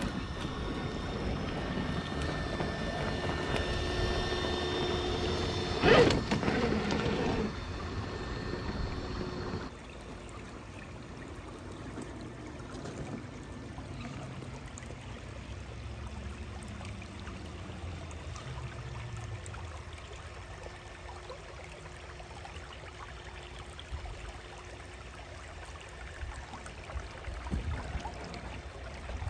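Axial SCX6 1/6-scale RC crawler running, its electric motor and ESC cooling fan humming steadily as it climbs rocks, with one loud knock about six seconds in. About ten seconds in the sound drops to a quieter hum with water trickling and splashing as the truck wades through a shallow creek.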